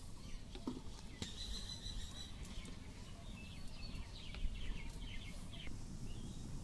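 Birds chirping in short, quick calls over a low steady rumble, with a few light knocks of a wooden spatula against a metal pan as milk is stirred.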